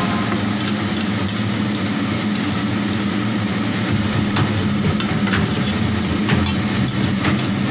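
Stir-frying in a stainless steel wok: snow peas and mushrooms sizzling as a spatula stirs them, over a steady low hum. A few sharp clicks of the spatula against the pan come in the second half.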